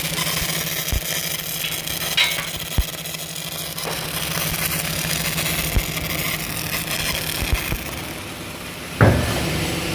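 Steady hum of running factory machinery at a sheet-steel processing site, with occasional short metallic knocks and a sudden louder burst of noise near the end.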